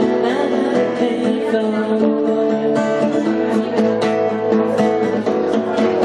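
Instrumental music between sung lines: chords strummed on a guitar in a steady rhythm.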